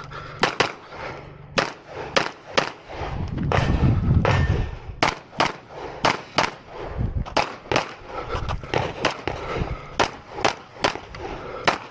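A string of semi-automatic pistol shots fired during a USPSA stage run, mostly in quick pairs with short gaps between them, the shots cracking sharply and at close range. About three seconds in there is a low rumble for a second or so.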